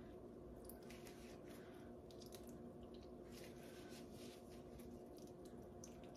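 Near silence: faint wet squishing of soft mozzarella curds being squeezed by hand as the whey is pressed out, over a steady low hum.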